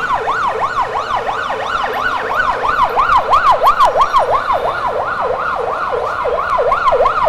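Electronic siren sounding a fast yelp, its pitch sweeping up and down about four times a second without a break.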